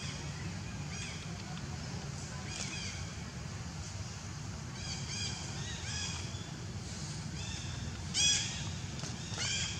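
Short, high-pitched animal calls, each a quick rise and fall in pitch, scattered irregularly and loudest near the end, over a steady low hum.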